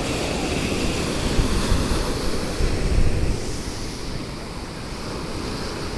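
Ocean waves breaking in the surf, swelling louder between about one and a half and three seconds in, then easing off, with wind buffeting the microphone.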